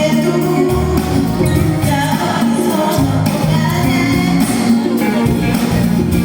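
Pop-rock song: a woman singing over a band with a steady drum beat.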